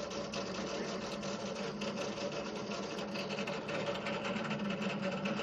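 Drill press motor running steadily with a crackling, scratchy grinding over it as the bit cuts a drainage hole through an egg cup.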